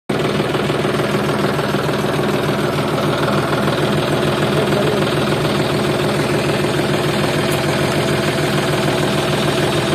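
Tractor engine running steadily at idle, an even, unchanging engine sound.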